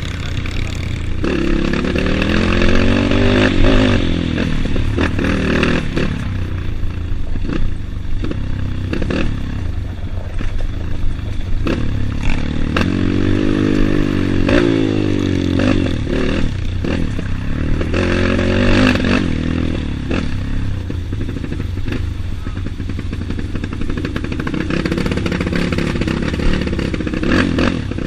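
Trail motorcycle engine under way, the revs rising and falling again and again, with clattering and knocks from the bike over rough ground.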